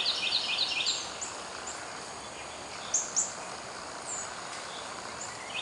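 Songbirds: a rapid trill of short repeated notes, about five a second, for the first second, then a few scattered high chirps over a steady background hiss.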